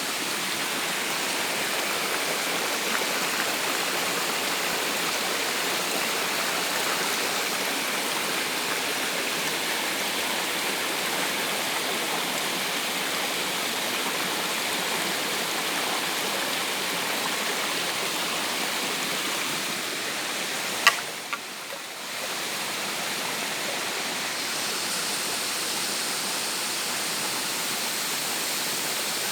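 Waterfall: water pouring over rocks in a steady, even rush. About two-thirds of the way through there is a sharp click, and the rush briefly dips.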